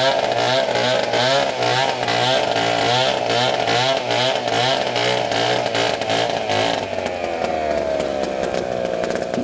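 Stihl chainsaw running, its engine pitch wavering quickly up and down, then sliding lower and steadying about seven seconds in.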